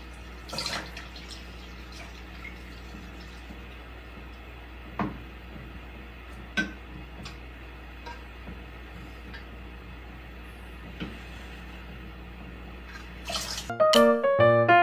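Steady low room hum with a few soft, isolated ticks, then bright electric piano music comes in near the end.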